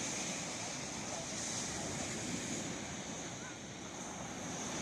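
Sea waves washing onto the shore: a steady rushing surf noise that swells and eases a little, with wind.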